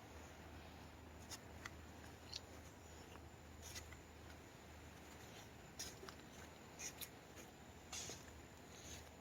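Near silence over a steady low hum, with scattered faint clicks and rustles, a few of them close together about six to eight seconds in.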